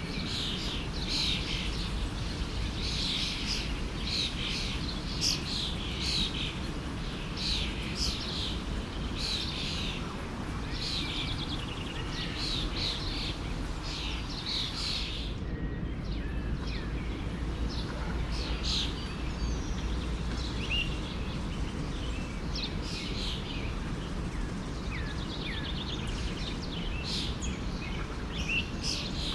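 Forest stream flowing steadily under a chorus of small birds chirping and singing. The birdsong is dense at first, thins out about halfway through, and picks up again near the end.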